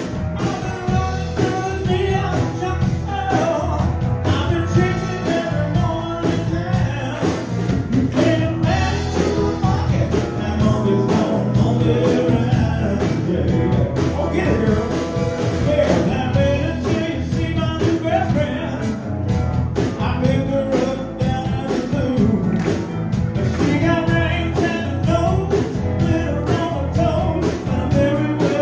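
A band playing an upbeat rock-and-roll song on electric guitar, keyboards and drums, with a singer.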